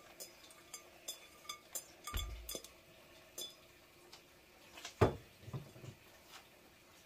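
Light clinks and taps of a glass bowl and kitchenware against a pot as chopped vegetables go into the water, with a duller thump about two seconds in and a louder knock about five seconds in.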